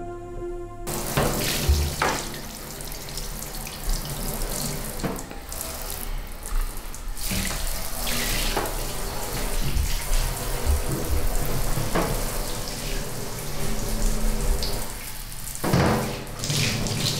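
Water running and splashing, starting abruptly about a second in, with faint music underneath.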